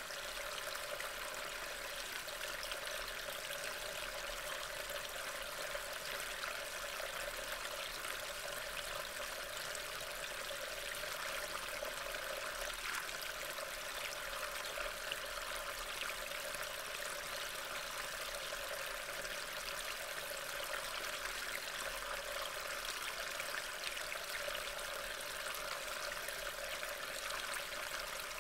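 Steady hiss of rain falling, picked up by a trail camera's microphone and played at double speed.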